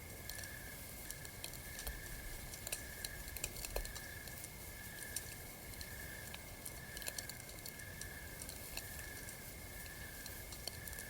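Campfire crackling, with small irregular pops and snaps, over a steady high chirping that pulses a little more than once a second.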